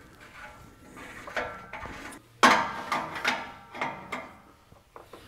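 A 22mm open-end wrench clinking against the hex of a wideband oxygen sensor as the sensor is threaded into its exhaust-pipe bung: a few irregular light metal clicks, the loudest about two and a half seconds in.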